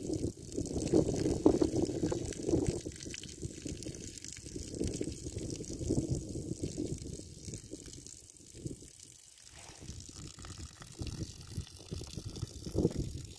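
Water running in a thin stream from a homemade siphon's outlet valve and splashing onto the ground, unevenly, louder in the first few seconds.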